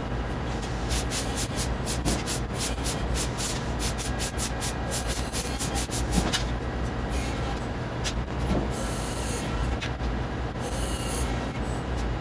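Steady low hum of a CNC press brake and the shop around it, with repeated short scraping, rasping sounds in the first few seconds and a few longer swishes later, as an aluminium sheet is handled at the machine.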